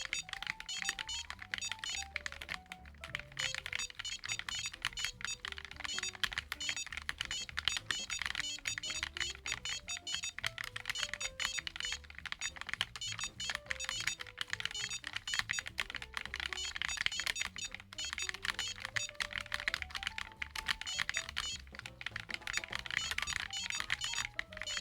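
Continuous fast typing on the Drift Keyboard, a split mechanical keyboard: a dense clatter of key presses with no pauses. Background music with a stepping melody plays underneath.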